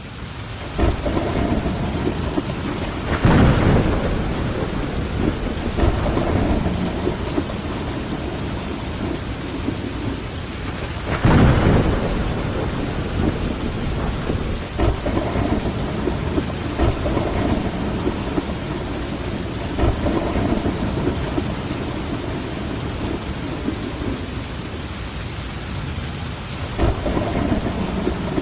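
Steady rain with rolls of thunder. The sound swells up from silence in the first second, and the loudest thunder rumbles come about three seconds in and again about eleven seconds in.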